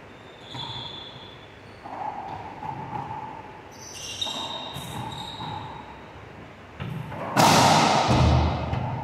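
A racquetball rally on a hardwood court: rubber-soled court shoes squeaking and footsteps thudding as the players move. Near the end a loud ball strike rings out with a long echo in the walled court.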